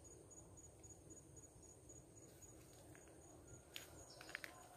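Near silence outdoors, with a faint insect chirping in a quick, even pulse a few times a second throughout, and a few soft clicks near the end.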